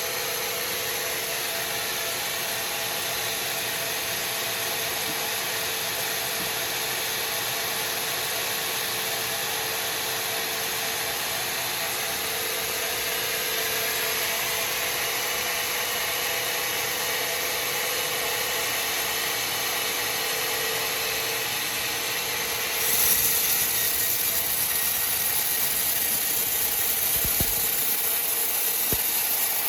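Sawmill saw machinery running steadily with a continuous mechanical whine and hiss. About three-quarters of the way through it gets louder and brighter, consistent with the saw cutting into the wood.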